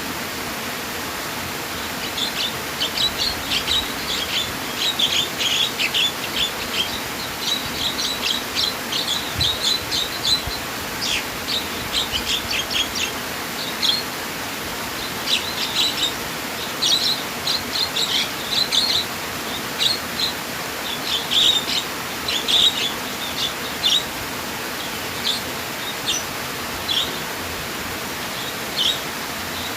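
Small birds chirping in quick clusters of short, high notes over a steady rush of flowing water. The chirping is busiest through the first two-thirds and thins to scattered calls near the end.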